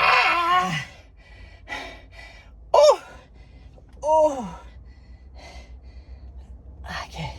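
A man's pained yelps, gasps and hissing breaths as his bare legs touch a hot black leather car seat: a long falling cry at the start, a short high yelp near the middle, another falling cry a second later, and one more near the end.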